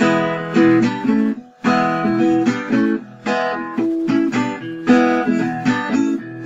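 Acoustic guitar music: strummed chords in a pattern that repeats about every second and a half.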